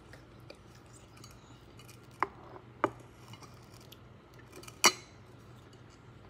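A plastic cup of slime being handled on a stone countertop: three sharp clicks about two, three and five seconds in, the last the loudest.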